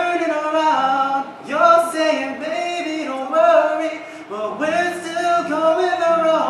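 A young man singing solo into a handheld microphone, in long held notes that bend in pitch, sung in three phrases with short breaths between them.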